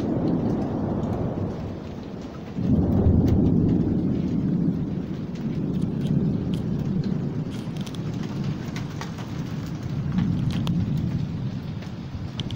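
Thunder of a severe thunderstorm: a loud rumble breaks in suddenly, a second, louder peal follows a few seconds in, and it rolls on in swells before easing near the end. Rain and scattered raindrop ticks sound underneath.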